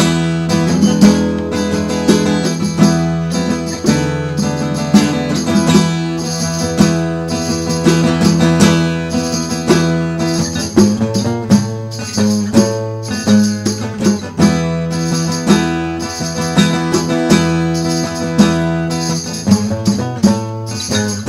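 Instrumental background music with plucked guitar and jingling, tambourine-like percussion keeping a steady beat.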